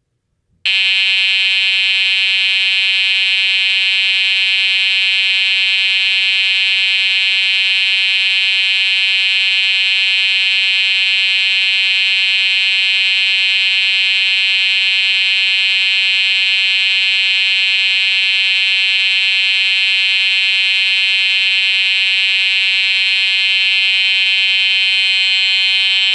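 Edwards 892-6B fire alarm horn sounding, switching on just under a second in and holding one steady, continuous tone.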